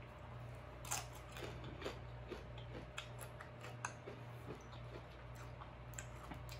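Close-miked chewing of a mouthful of shrimp ceviche on a crisp tostada: faint scattered crunches and wet mouth clicks, the sharpest about a second in, over a steady low hum.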